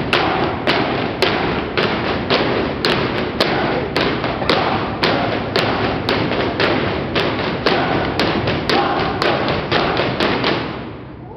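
Sharp stomps of a step team's feet on a wooden stage, about two to three a second in an uneven rhythm, over steady crowd noise.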